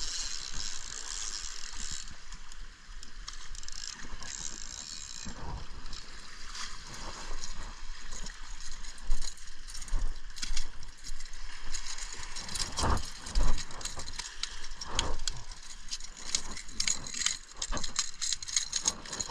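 Penn spinning reel clicking and ratcheting in rapid, irregular runs while a fish is fought on a topwater lure, the line going out against a loose drag and being cranked back in.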